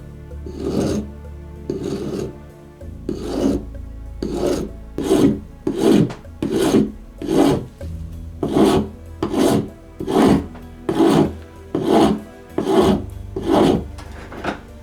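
Rhythmic back-and-forth hand abrading strokes on the old rubber mallet, about one stroke a second, each a rasping scrape.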